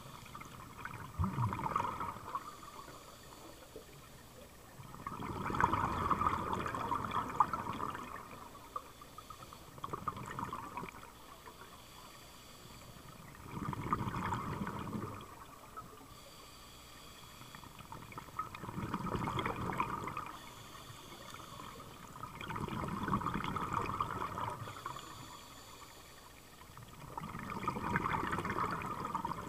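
A scuba diver breathing underwater through a regulator: a surge of exhaled bubbles on each breath out, coming back about every four to five seconds, with quieter stretches in between.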